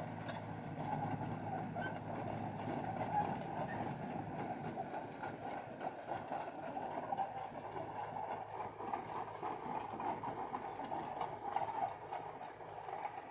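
Caterpillar E120 tracked excavator travelling on its steel crawler tracks, its diesel engine running steadily under the clatter of the tracks.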